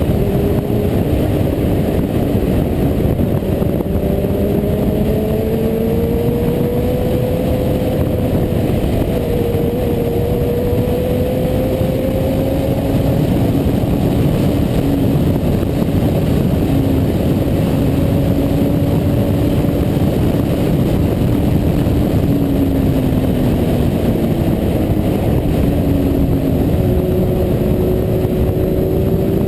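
Onboard sound of a sport motorcycle at speed: heavy wind rush over the microphone, with the engine's note beneath it rising and falling slowly as the throttle is opened and eased.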